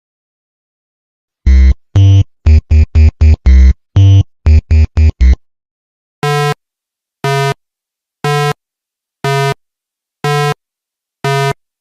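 Electronic synthesizer tones: a quick run of about a dozen short, low, buzzy notes, then evenly spaced higher beeps about once a second.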